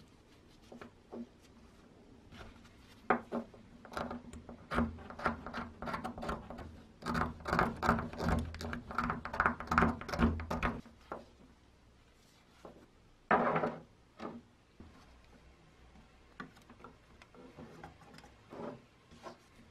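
Gloved hands handling a small wooden tool handle and working a brass ferrule onto its end: irregular clicks, taps and rubbing of wood and metal, busiest in the middle, with one louder scrape later and then only scattered light clicks.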